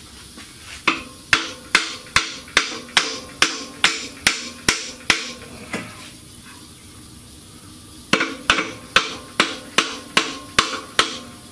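A hammer is tapping on the replacement transmission of a 2009 Toyota Camry to nudge it onto its locating dowel. There are two runs of light, evenly spaced metallic taps, about two a second: a dozen taps, a pause of about two seconds, then about eight more.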